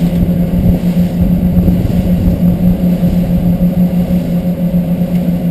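Twin outboard motors running steadily at cruising speed, a constant drone under the rush of wind and water as the boat planes.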